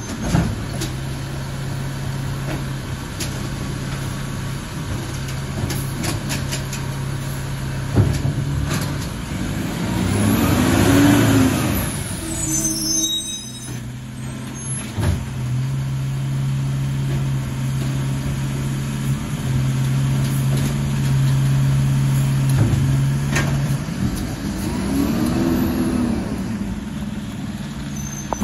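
Diesel engine of an Autocar ACX automated side-loader garbage truck running as it drives along the street: a steady low engine note, with the noise swelling and fading twice as the truck passes close by, and a few sharp knocks.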